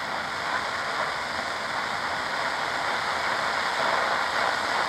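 Steady shortwave static hiss from a RadioShack DX-397 portable receiver, tuned between stations with no signal coming through.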